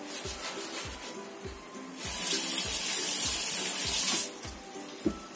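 Background music with a steady beat. About two seconds in, a loud, even rushing hiss cuts in, lasts about two seconds and stops abruptly.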